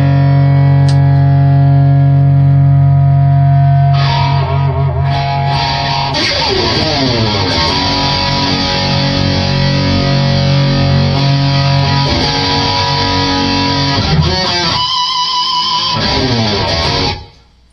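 EVH Wolfgang Special electric guitar played distorted through an EVH 5150 III amplifier: a held chord rings for about four seconds, then riffs and lead lines follow, with notes gliding down in pitch. The playing cuts off suddenly near the end.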